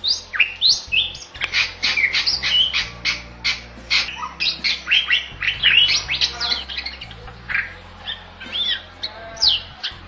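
Bali myna in full song: a fast run of loud, short notes sweeping up and down in pitch, packed close together for about the first six seconds, then thinning to scattered calls.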